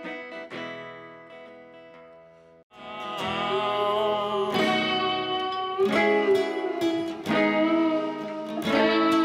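Background music led by plucked guitar. It fades away, breaks off for a moment a little under three seconds in, then comes back louder with strummed guitar chords.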